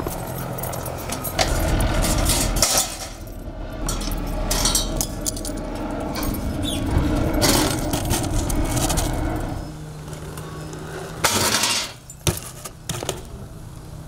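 Metal clanking and rattling as a BMX bike is lifted off a steel frame rack, with many scattered sharp clinks and knocks and one louder clatter about 11 seconds in.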